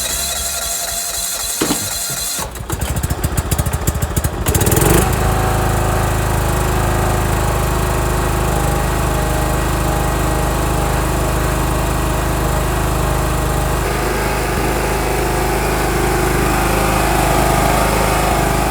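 John Deere 170 riding lawn mower engine being cranked by a weak starter while it is turned over by hand. It turns over in a rapid chatter, catches about five seconds in, and then runs steadily.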